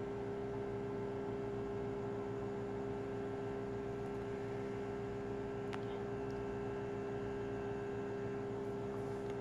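Small digital egg incubator running with a steady hum. There is a faint click about six seconds in.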